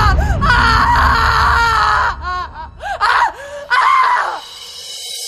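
Girls screaming and wailing in pain after an acted acid attack: high, wavering cries in several overlapping bursts. A low rumble runs under the first two seconds or so.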